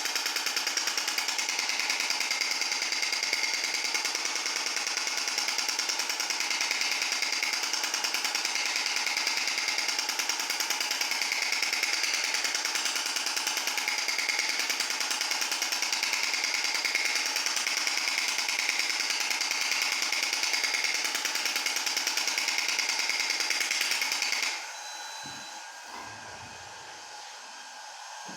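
Extracorporeal shock wave therapy (ESWT) device firing its shock-wave pulses in a rapid, steady, monotonous train, like a small jackhammer. The pulses stop abruptly near the end, leaving only a faint background.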